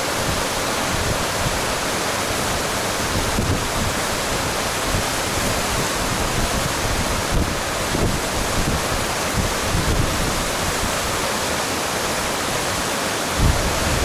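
Fast-flowing rocky stream rushing over boulders in white-water rapids, a steady, loud rush of water. Low wind rumble on the microphone comes in near the end.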